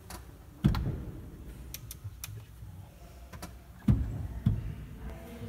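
Three dull low thumps with a scatter of light clicks between them, and no organ notes sounding.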